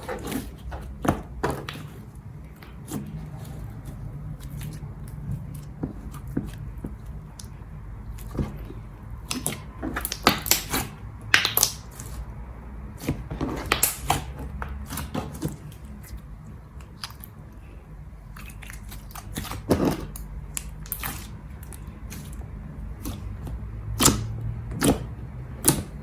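Slime being squeezed, stretched and poked by hand, making irregular sticky pops and clicks, in clusters about ten seconds in and again near the end, over a low steady hum.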